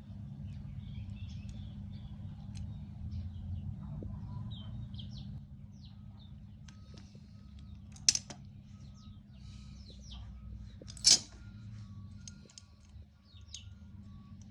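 Faint bird chirps over a low steady hum, with two sharp clicks about three seconds apart, the second the louder.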